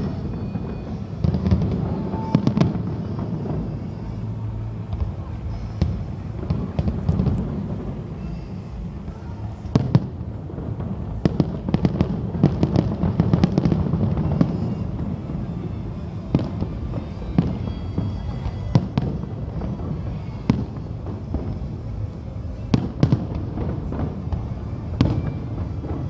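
Aerial fireworks shells bursting overhead: many irregular sharp bangs, some in quick runs, over a steady low background din.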